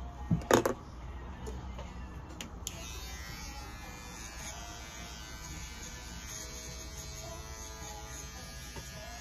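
A few sharp knocks in the first second, then a small cordless pet clipper switches on with a click just under three seconds in and runs with a steady buzz as it trims the fur on a cat's paw pads.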